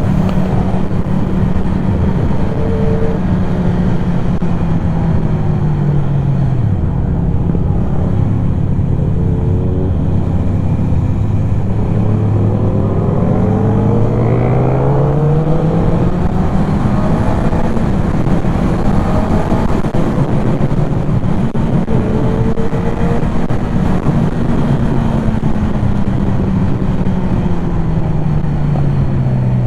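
Motorcycle engine running while ridden, with rush noise throughout. The engine slows around six seconds in, climbs steadily in pitch from about twelve to sixteen seconds as the rider accelerates, and falls again near the end.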